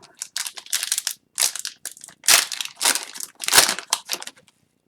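Plastic foil wrapper of an Upper Deck Series 1 hockey card pack being torn open and crinkled: a run of irregular crackling rustles that stops near the end.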